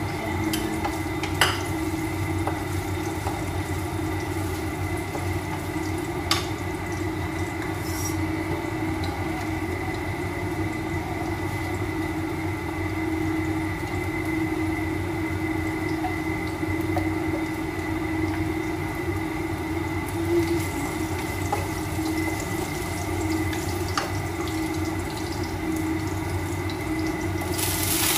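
Oil sizzling steadily in a wok on a gas burner as ingredients are sautéed, over a steady hum, with a few sharp clicks of the spatula against the pan. Near the end the sizzle jumps suddenly much louder as leafy vegetables are tipped into the hot oil.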